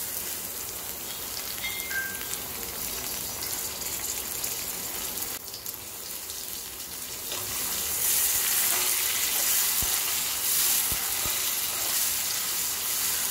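Chopped tomatoes and onions sizzling in hot oil in a kadai, stirred with a slotted spatula while the tomatoes fry down to soften. The sizzle grows louder about eight seconds in.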